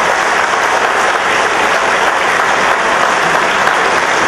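An audience applauding, loud and steady.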